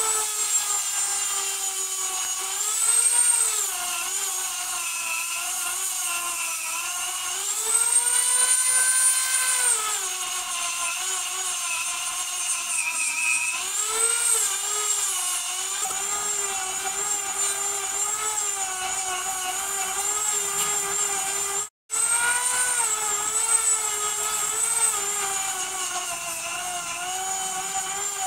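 A small high-speed electric power tool running continuously, its whine dipping and rising in pitch as the work loads and frees the motor. The sound cuts out for an instant about three-quarters of the way through.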